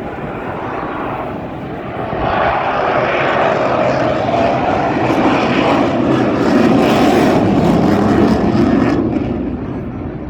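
Eurofighter Typhoon's twin EJ200 jet engines heard as it flies a slow, high-angle-of-attack pass. The jet noise swells about two seconds in, its pitch falls as the aircraft goes by, and it eases off near the end.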